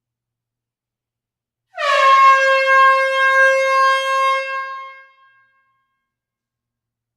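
One air horn blast, about three seconds long, starting a little under two seconds in. Its pitch sags slightly at the onset, then holds steady before fading out.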